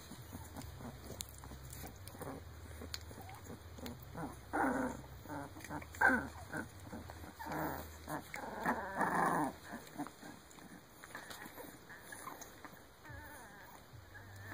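Nineteen-day-old Shar Pei puppies whining and squealing in short cries. The loudest is a sharp squeal about six seconds in, and a longer cry follows a few seconds later.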